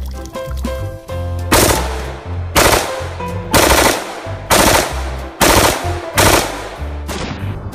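Six loud gunshot blasts, about one a second, each dying away briefly, over background music.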